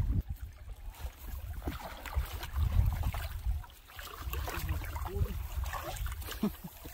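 Shallow river water splashing and sloshing around a person's feet as he wades in, with gusts of wind buffeting the microphone.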